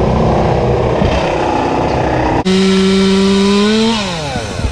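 Gas chainsaw held at full throttle, starting suddenly about halfway through, then its revs falling away as the throttle is let off. Before that, a steady mix of engine noise.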